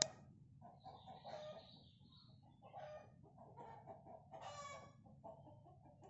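Junglefowl clucking in a run of short repeated calls, with a single sharp click at the very start.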